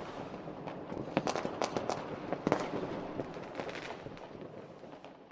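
Fireworks crackling and popping in irregular sharp bursts, gradually fading away near the end.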